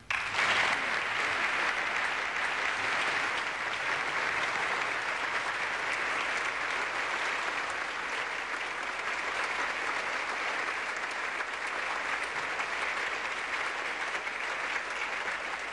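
Sustained applause from a large audience filling a legislative chamber at the close of a speech, even and unbroken throughout.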